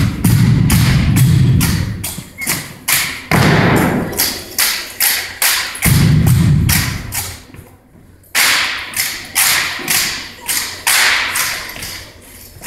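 Exhibition drill team's synchronized routine: a quick run of sharp slaps and taps, about three a second, with heavier thumps on the floor near the start, about three seconds in and about six seconds in.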